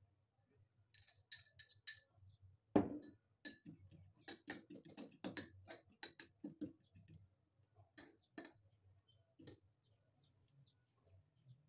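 Metal utensil clinking against the sides of a glass dessert cup while beating eggs and stirring in chopped parsley: irregular quick clinks, with one heavier knock about three seconds in.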